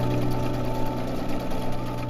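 Domestic sewing machine stitching steadily through layered canvas and binding, a fast even run of stitches, under soft background piano music.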